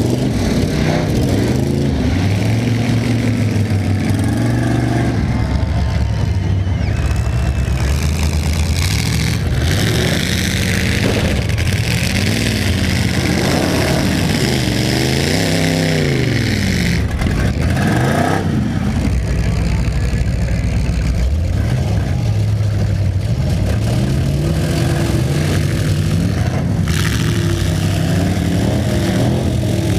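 Several demolition derby cars' engines revving, their pitches climbing and dropping over one another as they accelerate and back off, loud throughout.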